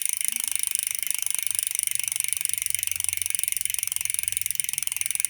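Crankbrothers Cobalt 1 rear hub's 3-pawl steel freehub clicking rapidly and evenly as the wheel freewheels: a fast, steady buzz of high ticks.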